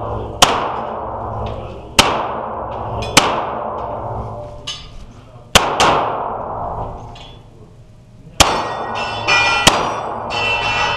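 Pistol shots from a semi-automatic handgun, about seven single shots spaced one to three seconds apart, two of them in quick succession near the middle. Each crack rings on with a long echo off the walls of an indoor range.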